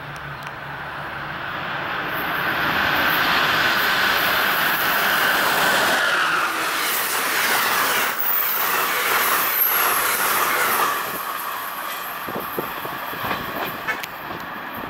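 An Amtrak Northeast Regional train, a Siemens ACS-64 electric locomotive hauling Budd Amfleet coaches, passes close by at speed with a rush of wheels on rail and moving air. The sound builds over the first few seconds, and a whine drops in pitch about six seconds in as the locomotive goes by. It stays loud while the coaches pass, then fades from about eleven seconds in as the train moves away.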